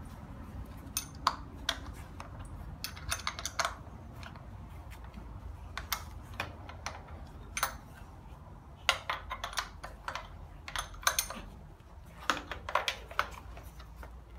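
Irregular sharp metallic clicks and light taps in short clusters, from hand tools being worked on a Hyundai 1.5 16-valve engine's intake manifold and throttle body, over a low steady hum.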